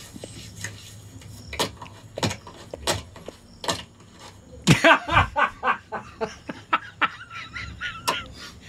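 Two men laughing. It begins with a burst about halfway through and goes on in snickers and chuckles until near the end. Before the laughter come a few short, separate knocks.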